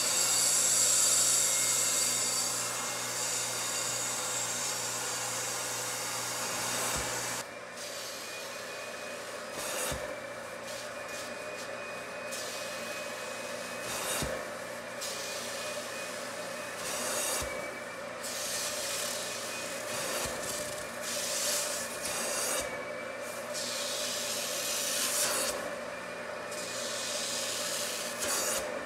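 Upholstery extraction machine's vacuum motor running steadily with a faint whine, while its hand tool is drawn across upholstery fabric in repeated strokes. The suction makes a rasping hiss that cuts out briefly between strokes every two to three seconds.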